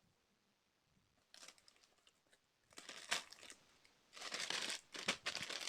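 Packaging being opened by hand, crinkling and rustling in irregular bursts that start about a second in and grow louder near the end.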